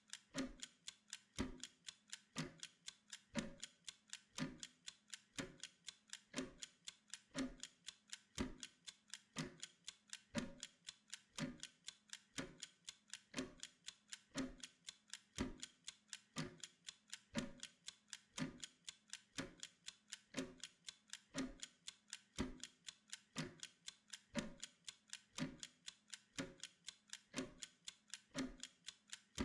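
Wind-up kitchen (Pomodoro) timer ticking steadily and rapidly while it counts down, with a heavier tick about once a second.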